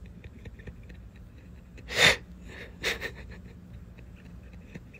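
A man laughing softly under his breath: a sharp, breathy burst about two seconds in and a smaller one about a second later.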